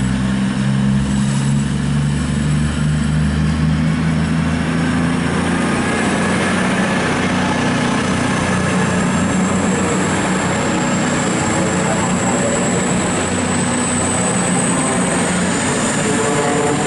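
Two coupled Class 220 Voyager diesel-electric units pulling away, their underfloor diesel engines droning under power as the cars pass, with a high steady whine joining about nine seconds in.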